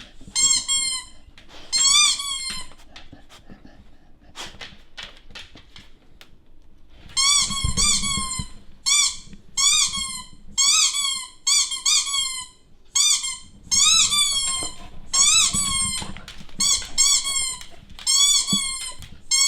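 Squeaky-toy sound effect played through TV speakers: short, high squeaks that bend up and down in pitch. A couple of squeaks come near the start, then after a pause a rapid run of them, one or two a second.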